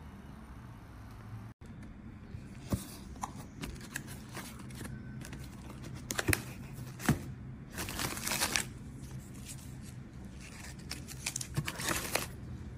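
Packaging handled by hand: an open cardboard box of paper-wrapped charcoal rolls rustling and crinkling, with scattered sharp clicks and scrapes. It starts after a low steady hum and a brief dropout about a second and a half in.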